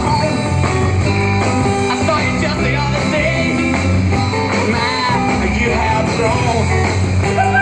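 Background rock-and-roll song with a singing voice and guitar.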